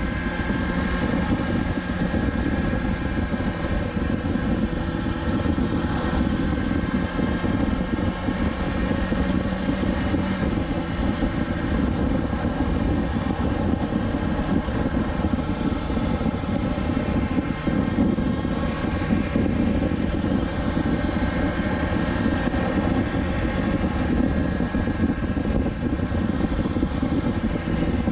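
2020 BMW S1000XR's inline-four engine running steadily at cruising speed, mixed with the rush of wind.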